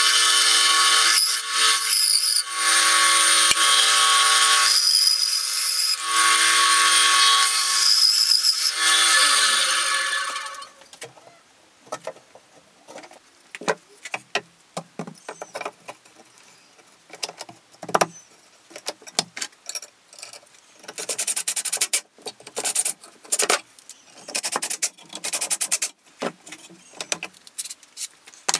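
Bandsaw running and cutting through wood with a steady hum and rasp, the motor winding down with a falling pitch about ten seconds in. After that, light knocks and clicks of wooden pieces being handled and set against a wooden frame.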